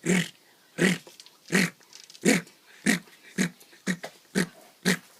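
A man imitating an animal call with his voice: a run of about nine loud, breathy grunts that come steadily faster and shorter, from under a second apart to about half a second.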